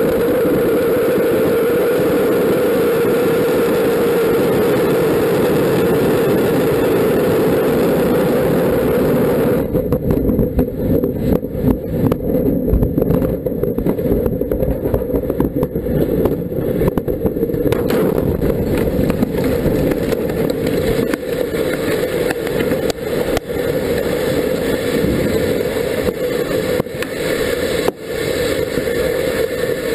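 A rocket's engines firing at liftoff, a steady loud rushing noise. About ten seconds in it turns rough and uneven with many sharp cracks as the launch fails and the rocket explodes, and the crackling rumble of the fire carries on.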